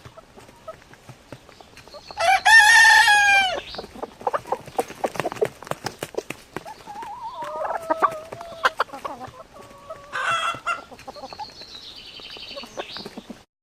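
Chickens: a rooster crows loudly once about two seconds in, followed by scattered clucking and a second, shorter call around the ten-second mark. The sound cuts off abruptly near the end.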